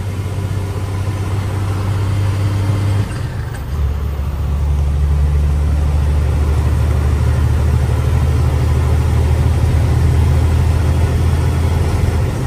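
Detroit diesel engine of an International truck running under way, heard from inside the cab: a steady low hum. About three seconds in, after a brief dip in level, its note drops lower and then holds steady and slightly louder.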